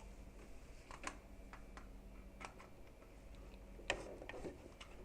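Scattered light clicks and taps of hands handling tools and a power cord on a workbench, about eight in all, the loudest a little under four seconds in, over a faint steady hum.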